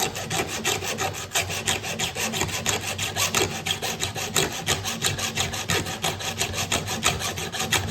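Hand file rasping on a steel chainsaw chain in quick, even strokes, about four or five a second.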